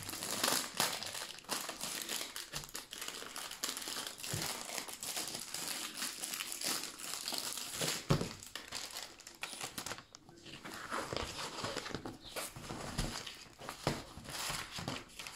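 Clear plastic wrapping crinkling and rustling as a rolled diamond painting canvas is slid out of its sleeve and unrolled by hand, its paper cover rustling too. A sharper knock stands out about eight seconds in.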